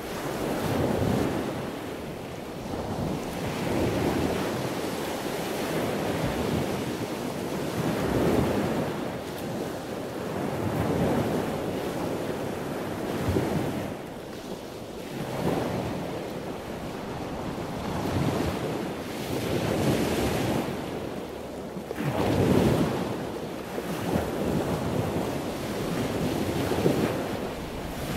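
Rushing water in waves, swelling and ebbing every two to four seconds.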